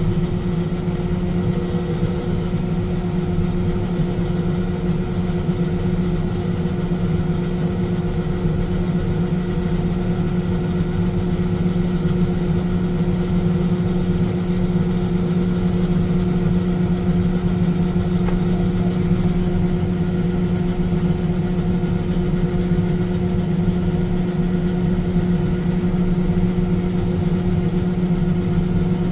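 John Deere S770 combine running steadily: a continuous, even engine drone with a constant low hum.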